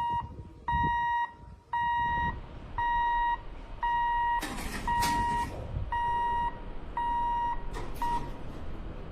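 Level-crossing warning beeper sounding a high, steady electronic beep of about half a second, repeated about once a second; the beeps stop near the end, the last one cut short. Two brief hissing noise bursts come in about halfway through and again near the end.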